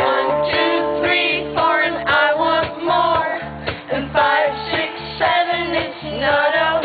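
Live rock band playing, a woman singing lead over electric guitar, keyboard and a steady drum and bass beat.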